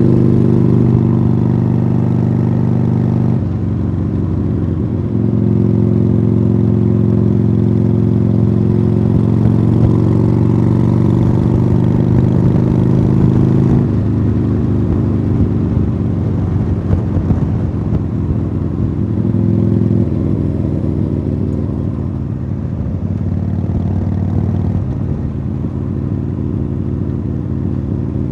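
2015 Harley-Davidson Sportster Iron 883's air-cooled V-twin running under way through Khrome Werks Tapered 3 exhausts. The engine note holds steady for stretches and changes pitch abruptly a few times, about three seconds in, near the middle and about twenty seconds in.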